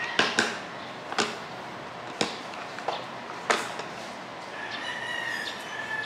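Laminated picture cards tapped and set down on a hard tabletop by a small child's hand: about six sharp taps spread over the first three and a half seconds. Near the end, a long, high, steady call sounds in the background.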